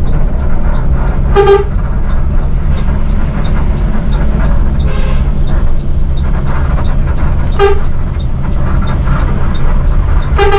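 Bus heard from inside its cab: the diesel engine's steady low drone, with two short horn toots, about one and a half seconds in and again near eight seconds.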